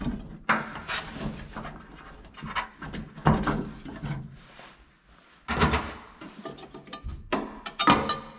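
Air cleaner housing and filter being worked off the carburettor of an air-cooled VW Beetle engine: several knocks and clunks with rubbing and scraping of the parts in between.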